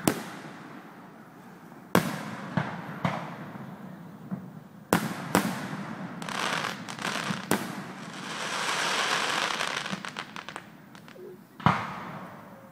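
Aerial fireworks shells bursting in a series of sharp bangs, about eight in all, with a long crackling hiss swelling in the middle.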